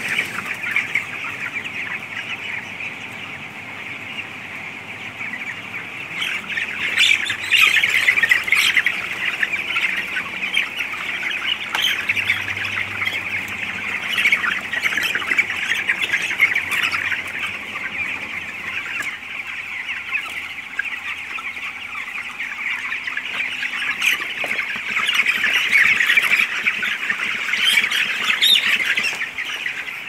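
A large flock of young broiler chickens calling together in a dense, continuous chorus of high cheeping and squawks, swelling louder about a quarter of the way in and again near the end.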